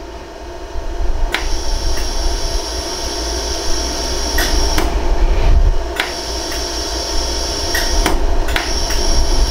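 Pulsed jewelry laser welder (LaserStar iWeld) firing single shots: sharp snaps at irregular intervals, roughly one a second, as gold welding wire is fused in to backfill a ring's sizing seam. A steady machine hum runs underneath, with a higher hum that comes and goes between shots.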